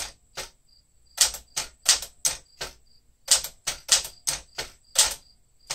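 Typebars of a 1967 Sears Tower Citation manual typewriter (built by Smith Corona) striking the platen. Quick runs of several keystrokes come with short pauses between the runs.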